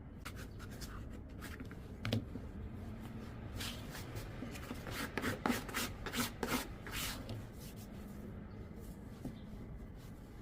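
Hands rubbing and scraping over bread dough on a work surface: a run of short strokes with a soft thump about two seconds in, the strokes coming thickest between about five and seven seconds.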